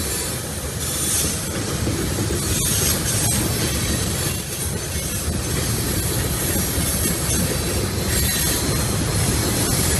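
Freight cars of a CSX manifest train rolling past: a steady rumble and clatter of steel wheels on the rails, with a high wheel squeal above it.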